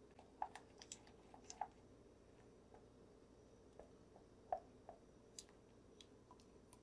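Faint, irregular clicks and taps of a white spatula stirring thick melted milk chocolate in a glass bowl, over near-silent room tone.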